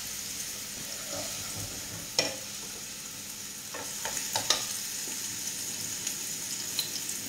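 Oil sizzling steadily in pans of frying prawn shells and artichoke stem. A few sharp knocks of pan or utensil, one about two seconds in and a cluster around four and a half seconds.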